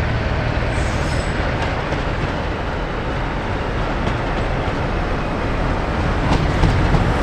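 Sulzer-engined diesel locomotive hauling a train past, engine running with the noise of wheels on the rails. It grows a little louder near the end, with a few sharp clicks.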